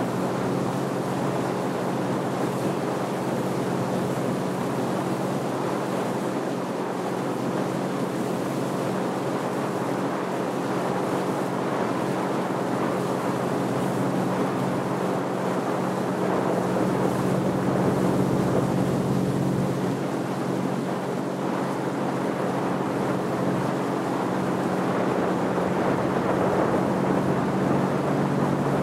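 Motorboat engine running steadily while the boat is underway, a constant hum under the rush of water and wind past the hull.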